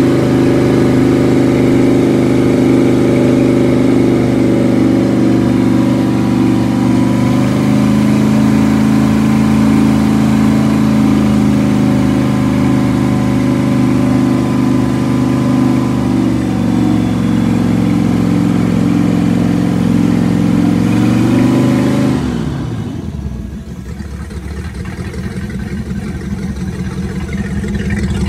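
Rebuilt Crusader 454 marine big-block V8 running on a test stand at a raised speed, its pitch rising and easing a little as the throttle is worked. About three-quarters of the way in the revs fall off quickly and it settles to a lower, quieter idle.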